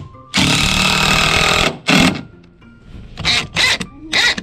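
Ridgid 18V cordless impact driver driving a screw through a metal bracket into a wooden beam: one long run of about a second and a half, then a short burst, then several short bursts near the end.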